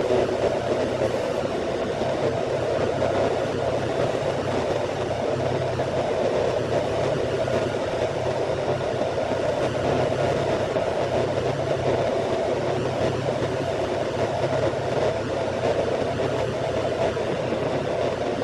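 A steady, unchanging mechanical rumble with a faint low hum underneath, like an engine or machine running out of sight.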